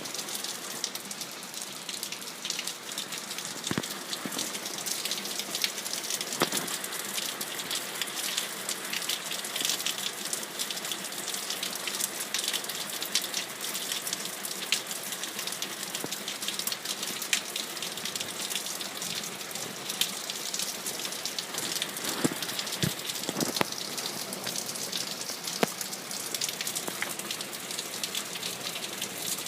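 Steady rain, with many sharp ticks of single drops landing close by.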